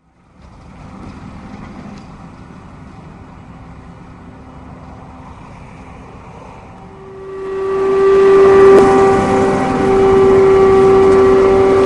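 Krone BigX 500 self-propelled forage harvester with an Easy Collect 7500 header chopping Sudan grass: a faint, steady engine and machine hum that grows much louder about seven seconds in, becoming a loud, steady whine with several held tones.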